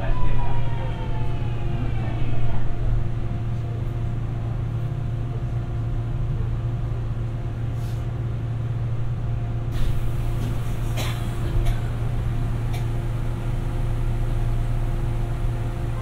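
Running sound inside a Busan Metro 2000 series subway car: a motor whine falls in pitch over the first two seconds or so. Then a steady hum and rumble carries on, with a few sharp knocks about ten to twelve seconds in.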